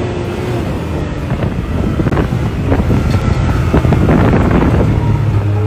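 Can-Am side-by-side UTV engine running as it drives across a field, with heavy wind buffeting the microphone. A steady low engine drone settles in near the end.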